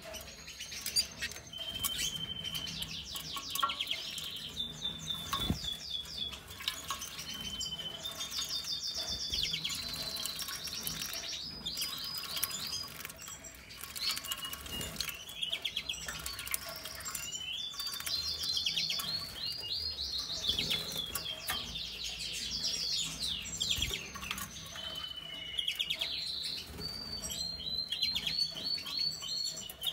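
Small caged finches twittering, with bursts of rapid trilled notes and chirps throughout, mixed with splashing as a finch bathes in a shallow plastic water dish.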